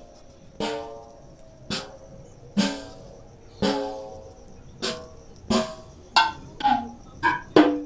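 Sampled electronic drum-pad sounds from a Roland SPD-20 sample set, acoustic snare drums among them, played one hit at a time on a mobile octapad app. There are about ten single strikes, each ringing briefly with a pitched tone, spaced about a second apart and coming quicker near the end.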